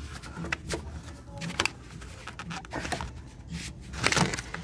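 Irregular clicks, knocks and a scrape of car parts being handled and slid off during Ford Fiesta transmission control module removal, the loudest cluster about four seconds in.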